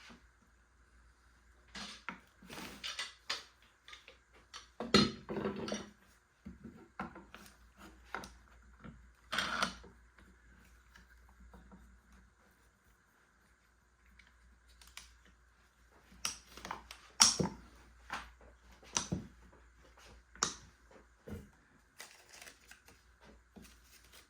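Small clamps being handled and set in place on a guitar's side: irregular sharp clicks and knocks, with a quiet stretch in the middle.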